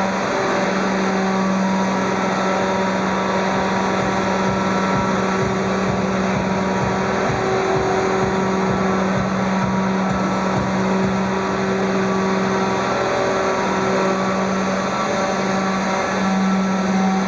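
Radio-controlled scale model Eurocopter EC145 helicopter hovering, its motor and rotors making a loud, steady whirring hum that holds one pitch throughout.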